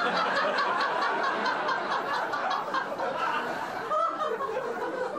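A crowd of people laughing, a continuous mix of chuckles and snickers.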